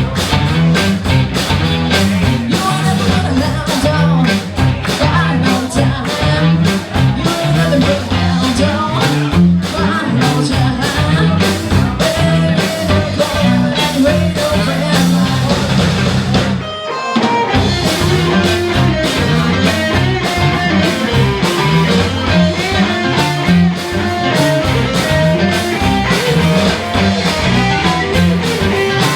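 Rock and roll band playing with a singer, guitar and a steady beat, stopping briefly about two thirds of the way through before carrying on.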